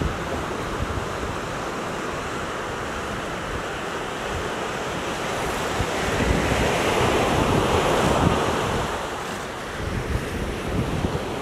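Ocean surf washing onto a sandy beach, swelling louder about six seconds in and easing off around nine seconds, with wind buffeting the microphone.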